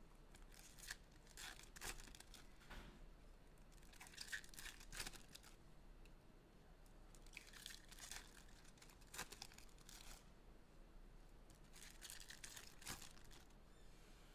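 Faint tearing and crinkling of trading-card packaging, the box and foil packs being ripped open, in short irregular rustles every second or two.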